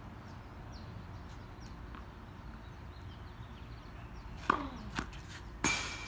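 Tennis balls being hit hard with racquets and bouncing on a hard court. Faint distant pops come first, then sharp hits near the end, the last and loudest with a short ring.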